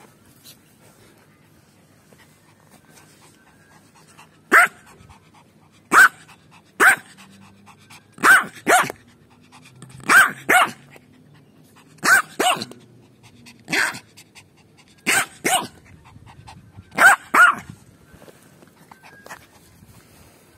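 Puppy barking at play: about fourteen short, sharp barks, often in quick pairs, starting a few seconds in and stopping a few seconds before the end.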